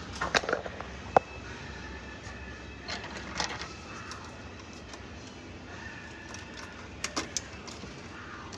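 Scattered clicks and light rustling of electrical wires and hand tools being handled, over a steady background noise. The sharpest single click comes about a second in, with small clusters of clicks a few seconds later and again near the end.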